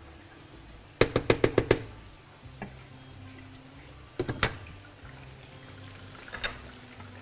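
A utensil rapped against the rim of the frying pan: a quick run of about six sharp taps about a second in, then three or four more around four seconds in, with faint background music underneath.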